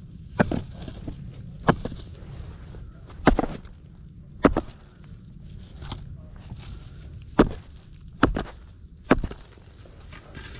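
Footsteps on gravel, seven uneven steps about a second apart.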